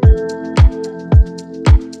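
Background music: a steady low drum beat a little under twice a second over held chords.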